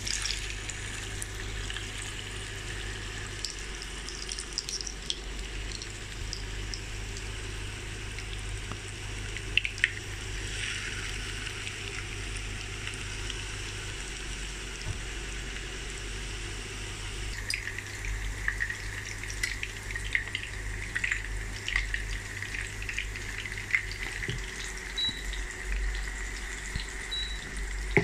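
Chicken seekh kebabs shallow-frying in hot oil in a non-stick pan: a steady sizzle with scattered pops and crackles over a low steady hum. The sizzle grows brighter and more crackly about two-thirds of the way through.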